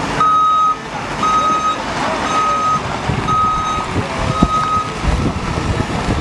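Reversing alarm on a JCB Hydradig wheeled excavator: a single-tone beep about half a second long, repeating about once a second, five times, stopping about two-thirds of the way through. Underneath it, the excavators' engines run steadily.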